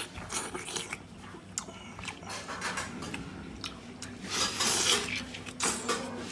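Close-up eating sounds: someone biting and chewing food, with crunching and small clicks, loudest for a stretch about two-thirds of the way through.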